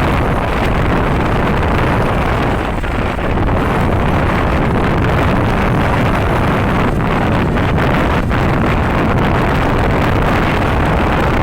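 Steady, loud rushing noise of wind on the microphone mixed with road-traffic rumble.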